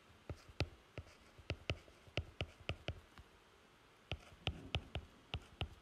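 Stylus tapping and clicking on a tablet screen as a word is handwritten: a string of short, faint, sharp taps, about three or four a second, with a pause of about a second a little past halfway.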